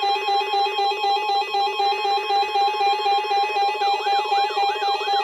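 Weather radio warning alarm sounding for the weekly test: a steady electronic tone over a rapidly pulsing lower tone, joined about three and a half seconds in by a repeating rising-and-falling siren-like sweep, about two a second.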